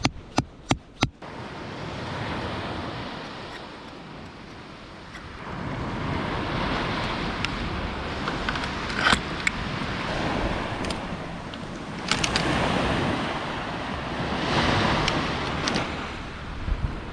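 Surf washing onto a sandy beach in repeated swells, with wind on the microphone. A few sharp clicks come in the first second.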